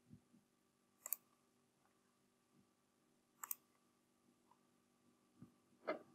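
Three computer mouse clicks, each a quick double tick of press and release, spaced a couple of seconds apart over near silence.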